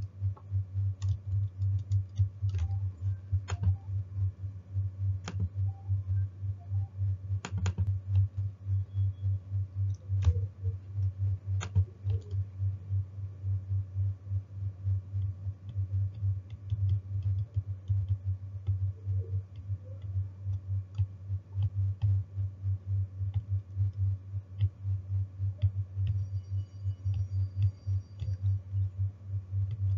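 A steady low ticking pulse, rapid and even, running without a break, with scattered sharp computer keyboard and mouse clicks mostly in the first dozen seconds.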